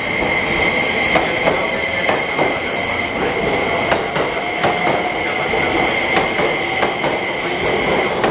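E261-series Saphir Odoriko electric express train running past along the platform: wheels clicking over rail joints, with a steady high-pitched squeal that stops near the end.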